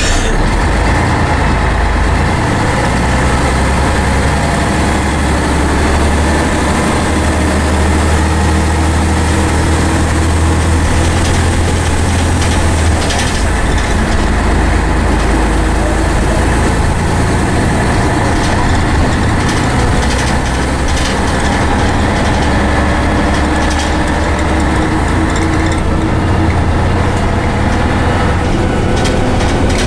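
Scania N113 bus's rear-mounted diesel engine and Voith automatic gearbox pulling the bus along, heard from inside the saloon with road and body noise. The low engine note shifts twice as the load or gear changes.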